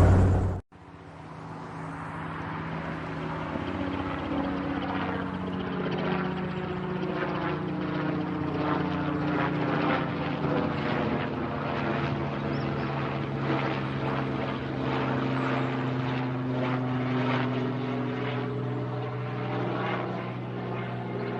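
Helicopter running: steady engine tones under the fast, even chop of the rotor blades, growing louder over the first few seconds and then holding steady. It begins just after a louder helicopter sound cuts off abruptly.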